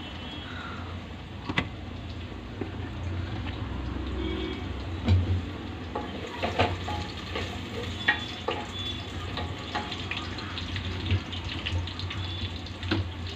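Cooking-pot and container handling at a gas stove: scattered clicks and knocks of a spoon on a metal pan and of plastic spice boxes, the loudest about five seconds in, over a steady low hum and hiss.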